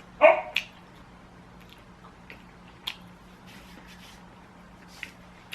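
Close-miked eating sounds: a loud short bite or mouth sound just after the start, then quiet chewing with a few small clicks.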